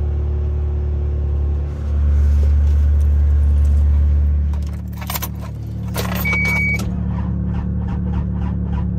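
A steady low hum, then keys jangling and a short electronic chime about six seconds in, followed by the cold diesel engine's starter cranking in slow, even strokes, about three a second, without the engine catching; the owner puts the no-start down to diesel gelled in the cold.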